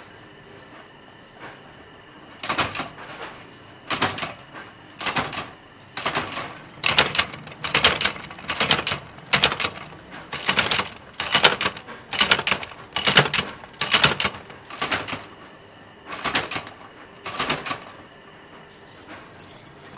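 A workshop press cutting coiled steel wire into individual rings for chain links: a quick run of sharp metal clanks, often in pairs, about two a second, starting about two seconds in and stopping a couple of seconds before the end.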